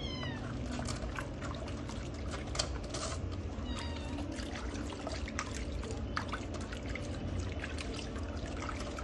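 Water splashing and dribbling as hands scoop and pour bathwater over a kitten in a soapy tub. A young kitten gives two short, high-pitched mews, one at the very start and one about four seconds in.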